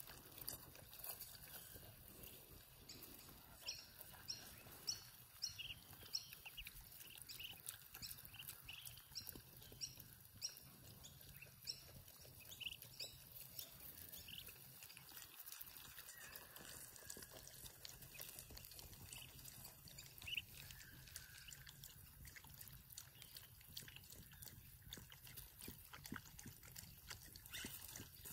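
Young ducklings peeping: a faint run of short, high calls repeated every half second or so, thickest in the first half and sparser later.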